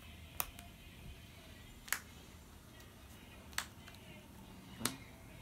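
Trading cards being put down and tapped on a playmat-covered table: four sharp clicks spaced a second or more apart.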